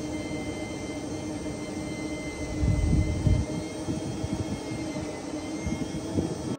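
A steady engine drone with a constant hum, louder and rumbling for about a second near the middle.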